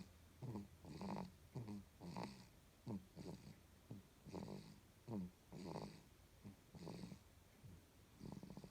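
One-month-old baby snoring in sleep: short, buzzing snoring breaths repeating at a quick, even rhythm, about one a second.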